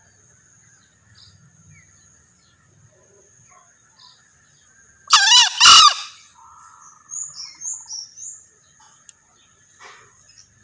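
Male green junglefowl crowing once, about five seconds in: a loud, hoarse, two-part call.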